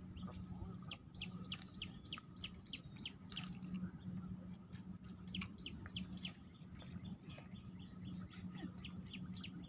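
A songbird calling in quick runs of sharp, downward-sweeping notes, about three a second, in three bursts of song separated by short pauses. A steady low hum sits underneath.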